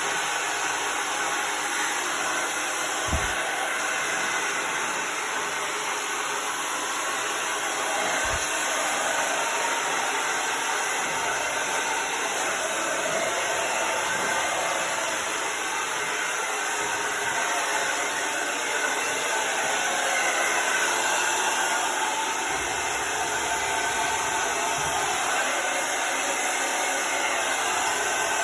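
Handheld hair dryer blowing steadily on hair, with a few soft low bumps of handling.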